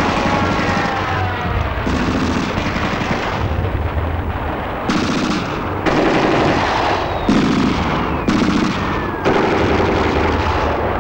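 Film soundtrack of battle sound effects: continuous gunfire, with long falling whistles laid over it twice.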